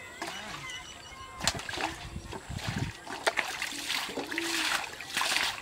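Water splashing and churning in a shallow canal, several splashes coming faster near the end, as a hooked fish thrashes at the surface.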